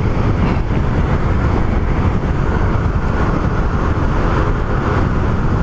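Suzuki Raider R150 Fi's single-cylinder engine running steadily at low revs, with wind noise on the microphone. The bike is being ridden gently, kept below 6000 rpm during its break-in period.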